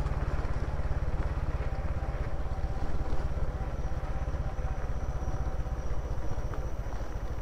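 Three-wheeled motorcycle's engine running steadily on the move, a low rumble with a fast, even pulse.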